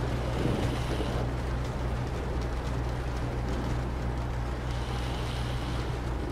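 Storm ambience: a steady wash of rain and wind over a constant low rumble.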